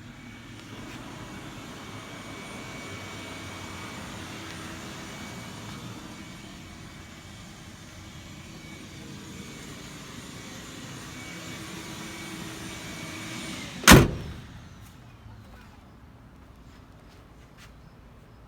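Steady background hum with a faint whine, then one loud slam about fourteen seconds in, as the door of a 1955 Chevrolet is shut; the hum cuts off with it.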